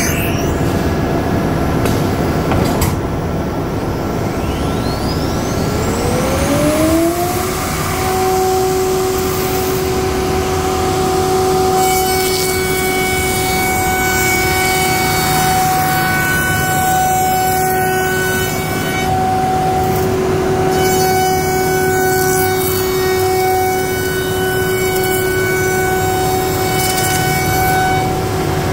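CNC router running: a spindle spins up, its whine rising in pitch between about five and eight seconds in, then holds a steady high whine over the constant noise of the machine and its dust extraction.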